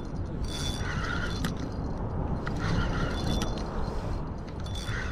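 Spinning reel cranked in short spells about two seconds apart, its gears whirring with small clicks as a hooked fish is reeled in, over a steady low rumble.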